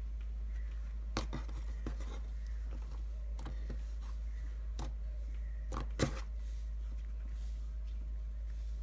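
Cloud cream slime being stretched, folded and poked by hand, giving scattered small clicks and pops, the loudest about six seconds in, over a steady low hum.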